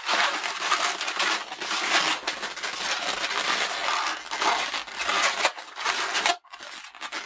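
A green 260 latex modelling balloon being twisted and squeezed by hand, the rubber rubbing against itself and the fingers in a continuous crackly rustle that eases off briefly about five and a half seconds in.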